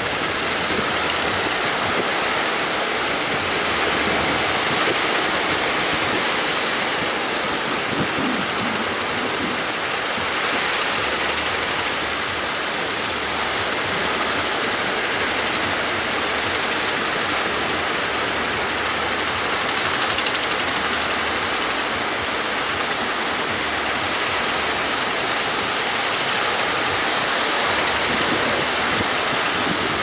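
Heavy surf breaking and churning, a steady loud rush of water noise.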